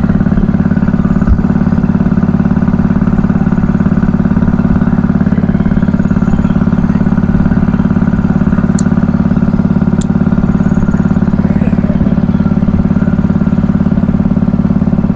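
An engine on a fishing boat running steadily at one constant speed, with no change in pitch.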